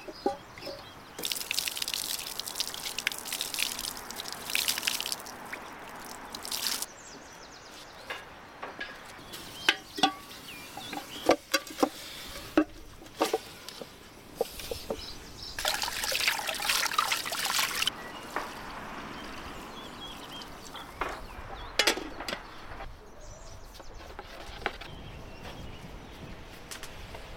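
Water pouring and splashing in a large metal cooking pot, in two spells of several seconds each, with scattered knocks and clinks of the pot being handled between them.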